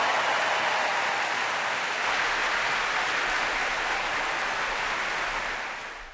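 Audience applauding steadily, fading out over the last second.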